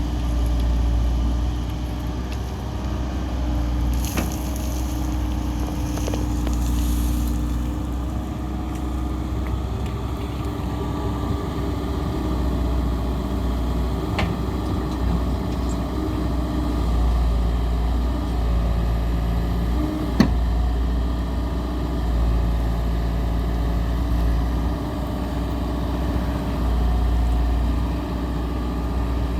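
Diesel engine of a 2005 Komatsu PC160LC-7 hydraulic excavator running steadily, its pitch shifting slightly, with a brief hiss about four seconds in and a few sharp clicks or knocks.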